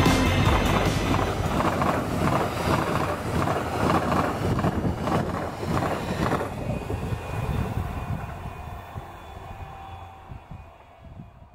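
A Greater Anglia multiple-unit passenger train passing at speed: an even rush of wheel and air noise with a regular clatter of wheels over the rails, fading away over the last few seconds.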